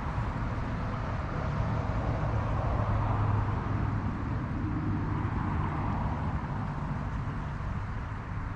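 Steady low rumble of a vehicle going by on a nearby road, swelling in the middle and easing off near the end.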